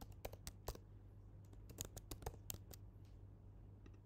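Faint computer keyboard typing: two quick runs of keystrokes with a short pause between, over a low steady hum.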